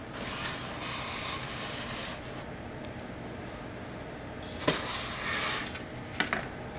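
Insulation foam pieces and a paper template being handled: rubbing and rustling in two stretches, with a light knock about five seconds in.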